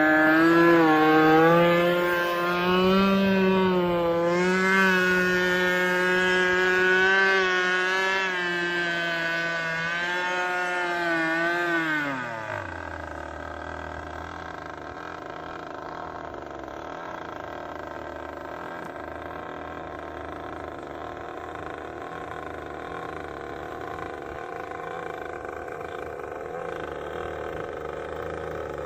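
RC boat's Arrow Shark XP254M two-stroke gas engine running with a wavering pitch, at about half throttle for break-in. About twelve seconds in the pitch falls sharply and the sound drops to a quieter, lower steady hum.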